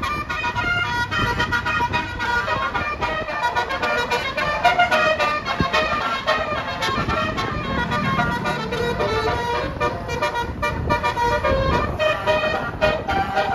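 Indonesian bus 'telolet' multi-tone musical air horn playing a melody of quick, changing notes, over the low rumble of road traffic.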